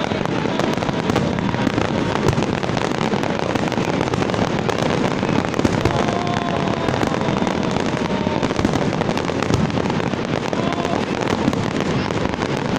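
Dense fireworks barrage: many shells bursting at once in a continuous, steady crackle of pops and bangs with no let-up.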